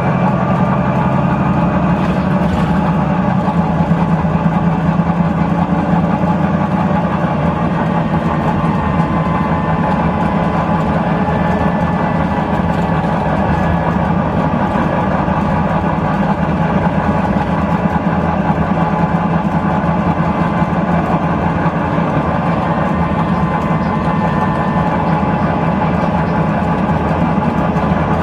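Volvo B9TL double-decker bus's six-cylinder diesel engine running loud and steady as the bus drives along, heard from inside the passenger saloon.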